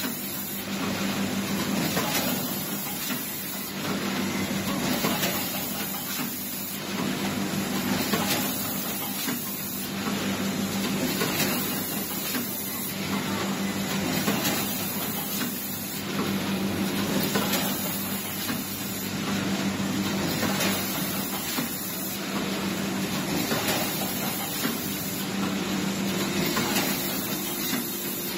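Automatic pre-made pouch packaging machinery running: a steady hum with a rush of high-pitched noise that repeats about every two seconds as the machines cycle.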